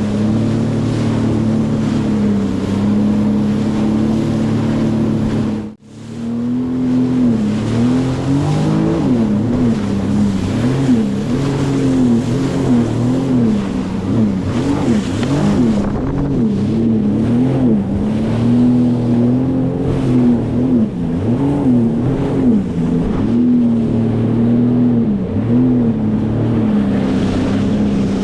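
Sea-Doo FishPro Sport 170 personal watercraft's Rotax three-cylinder engine and jet pump running at speed over chop, with wind and water rush. The revs hold steady at first, cut out for an instant about six seconds in, then rise and fall about once a second as the craft crosses the waves.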